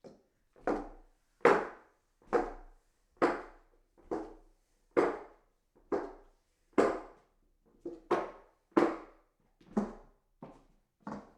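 Footsteps walking up hollow wooden stairs: a knock on each tread at a steady pace of about one step a second, a few steps landing as a quick double hit.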